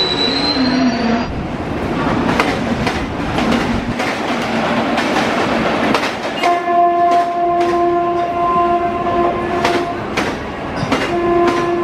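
A train passing close by, its wheels clicking over rail joints amid a loud rushing noise, while its horn sounds one long steady chord-like blast of about three and a half seconds, then starts again near the end.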